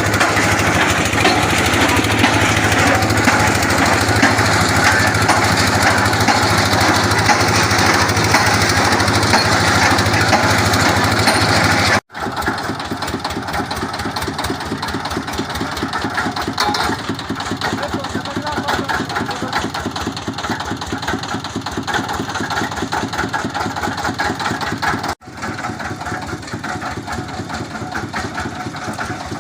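Water-well boring machine running, a loud engine with a fast, steady knocking beat. The sound cuts off abruptly twice, about twelve seconds in and again near the end, and comes back quieter each time.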